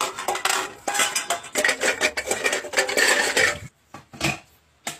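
Rapid metallic clattering and scraping as a hand works rice in a metal rice-cooker pot for about three and a half seconds. It is followed by a couple of separate sharp clicks at the electric rice cooker near the end.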